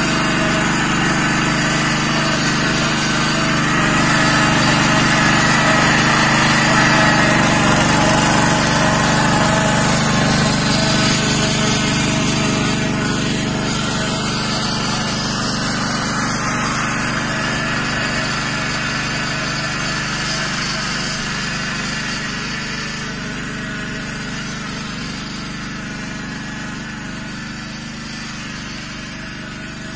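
Engine of a Yağmur YET 300 two-wheel walking tractor (patpat) running steadily, loudest a few seconds in and then gradually fading.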